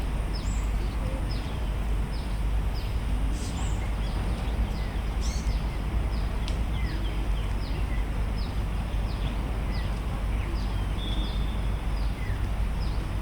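Small birds calling with many short, high chirps that fall in pitch, a couple each second, over a steady low rumble of outdoor background noise.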